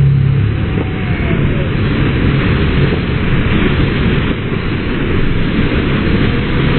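Loud, steady rushing of churning white water from an artificial standing surf wave, the pumped water pouring continuously.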